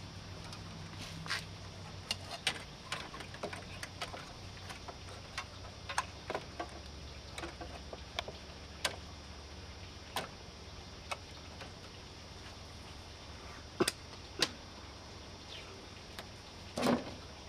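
Irregular light clicks and taps of electrical wires being handled and bent inside a metal breaker panel, over a low steady hum, with a slightly louder rattle near the end.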